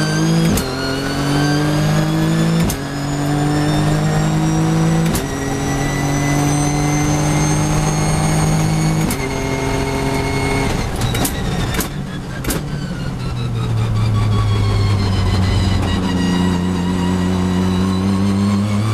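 Nissan GT-R GT3 race car's twin-turbo V6, heard from the cockpit, pulling hard through the gears. Its note climbs and drops sharply at four quick upshifts. Midway it brakes, with a few sharp cracks, then holds a lower steady note and climbs again near the end.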